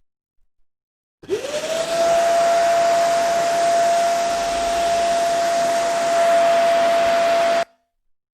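Roly 188 wet and dry vacuum cleaner switched on: its motor spins up with a quickly rising whine, then runs at a steady high whine over loud rushing air, and the sound cuts off suddenly near the end.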